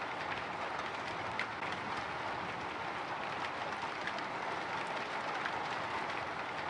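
Light drizzle pattering on a window: a steady hiss of rain with scattered faint ticks of single drops.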